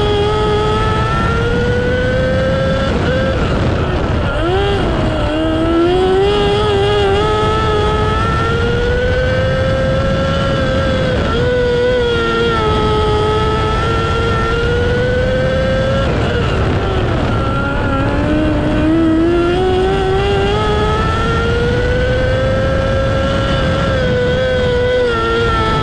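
Micro sprint car's motorcycle engine heard on board at racing speed. It is run hard, and its pitch climbs slowly along each straight and drops sharply as it goes into each turn, about every six to seven seconds.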